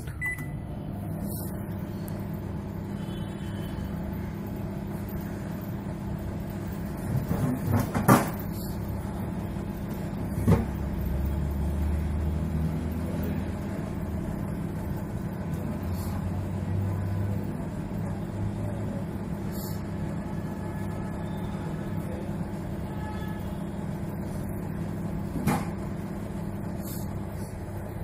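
LG MH-3948WC microwave oven running on a direct start with a steady low hum from its fan, turntable motor and transformer, with a few sharp knocks. It runs without heating the load: a no-heat fault.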